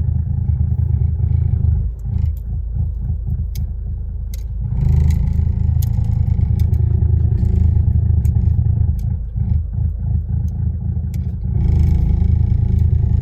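2010 Ford Focus TDCi diesel reversing, a continuous low rumble from the engine and drivetrain that swells and eases a few times, with scattered sharp ticks. This is the abnormal noise in reverse gear that appears when the accelerator is released.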